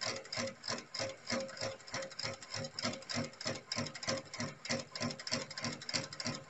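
Industrial sewing machine running steadily, stitching through braided boat rope with a rapid, even clatter of needle strokes.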